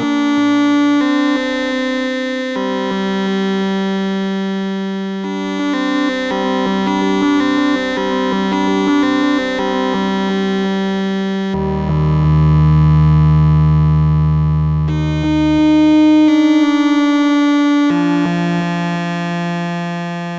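Moog Spectravox analog synthesizer oscillator through its filter, playing a line of held notes rich in overtones that change every second or two. A deep, loud bass note sounds from about twelve to fifteen seconds in.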